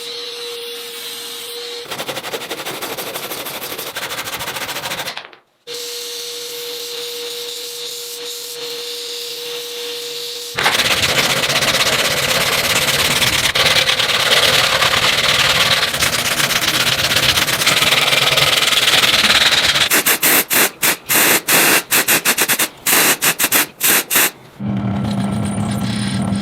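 Power tool grinding or sanding rusted metal. It runs steadily at first, gets much louder and denser about ten seconds in, then breaks into quick on-off pulses near the end.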